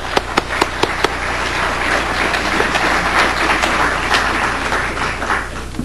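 Audience applauding: a few separate claps at first, quickly building into full, even applause that thins out near the end.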